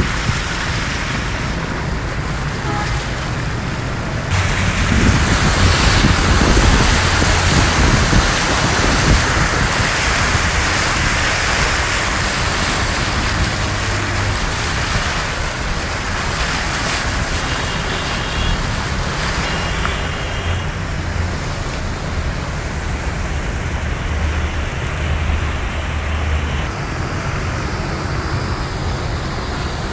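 Heavy rain pouring down as a steady, loud hiss, with a vehicle engine running low underneath. The rain grows louder about four seconds in.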